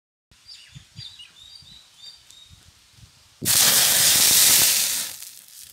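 Water splashed onto a hot iron griddle plate over a wood fire, flashing to steam with a loud hiss that starts suddenly about three and a half seconds in and dies away over the next two seconds. Before it, faint bird chirps.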